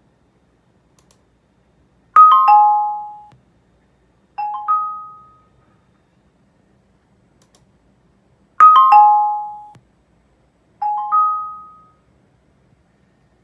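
Electronic notification chime played through speakers on a small class-D amplifier: a falling three-note chime, then a rising two-note chime, the pair heard twice. Each note dies away within about a second.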